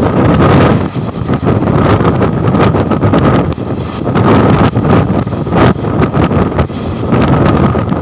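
Indian Railways passenger train running at speed, heard from on board: a loud, continuous rumble and rattle with irregular knocks, wind buffeting the microphone, and a faint steady whine.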